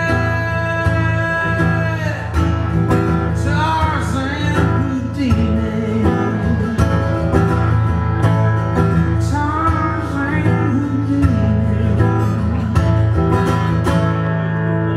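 Live country song: acoustic guitar strummed along with a steady bass line, and a man singing in places.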